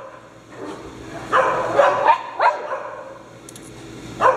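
Dog barking: a quick run of about four short barks a little over a second in, then one more near the end.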